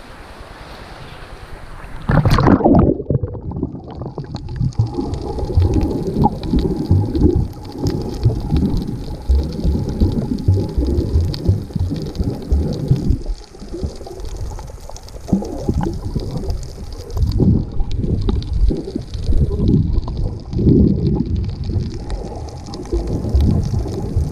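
A camera's microphone going underwater at sea: about two seconds in, open wind and surf noise gives way to loud, muffled low rumbling and gurgling of water against the camera housing, with a faint steady hum beneath.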